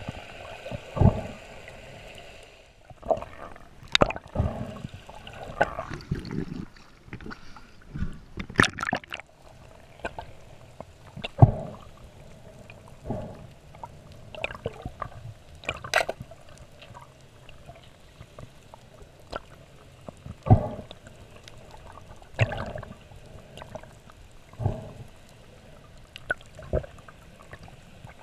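Muffled underwater sound picked up by a submerged camera: a low steady water hiss with irregular sharp clicks, knocks and short gurgles every second or two.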